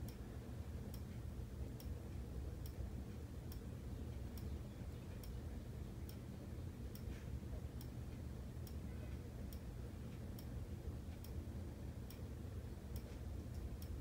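Faint, even ticking, a little faster than once a second, over a low steady hum.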